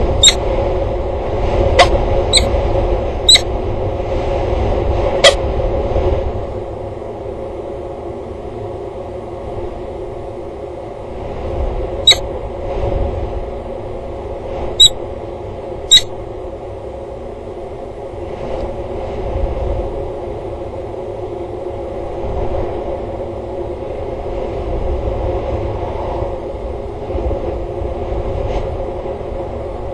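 Steady wind rumble on an outdoor microphone under a constant hum. Sharp clicks cut through it, about five in the first six seconds and three more a little past halfway.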